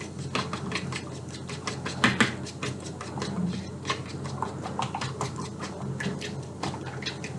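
Irregular light clicks, taps and scrapes of kitchen utensils and dishes being handled.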